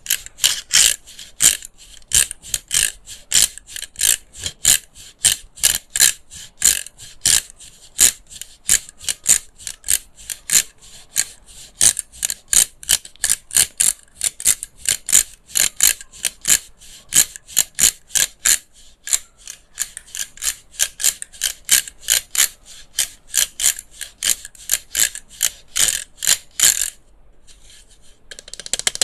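Crisp, regular tapping and scratching on the plastic of a handheld electric fan, about three strokes a second. It stops abruptly near the end and gives way to a soft rustle.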